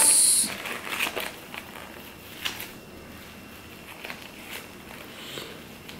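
Hands folding a sheet of nori over sushi rice on plastic wrap: a short crisp rustle at the start, then faint scattered crackles and ticks of the seaweed sheet and wrap being handled.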